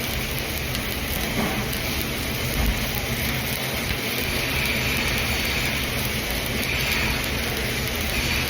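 Electric arc welding: the arc crackling and sizzling steadily as a vertical (3G) weld bead is run, with a low electrical hum underneath.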